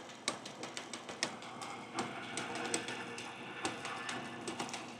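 Irregular light clicks and taps, a few a second, from hands working the mill's rotary-table setup; no machine is running.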